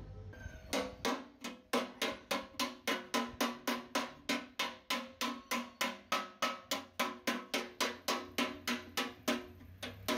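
Hammer striking metal in a fast, even run of about four blows a second, each blow ringing briefly.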